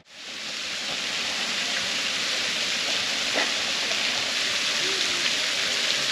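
Large public fountain: water jets and cascades splashing steadily into a stone basin, fading in over the first second.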